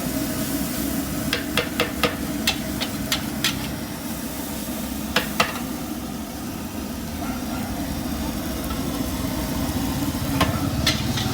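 Nasi goreng stir-frying in a wok: a steady sizzle, with the metal spatula striking the wok in a quick run of clanks over the first few seconds, twice around five seconds in, and again near the end.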